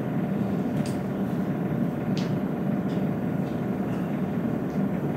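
Steady low rumble of room background noise, like a ventilation system, with a few faint ticks.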